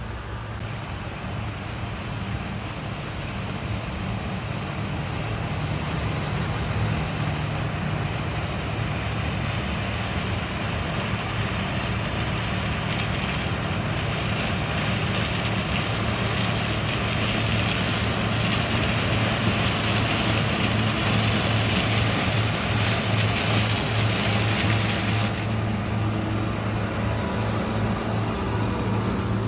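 Heavy farm machinery running steadily during a corn harvest, a low engine hum under a broad rushing noise. The rush swells through the middle and drops away sharply about 25 seconds in.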